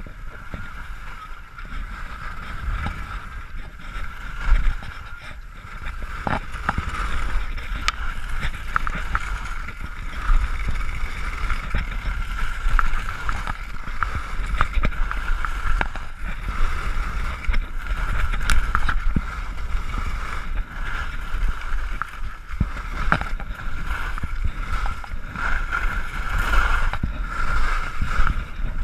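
Skis sliding and scraping steadily over packed snow on a downhill run, with wind rumbling on the camera microphone and a few brief clicks.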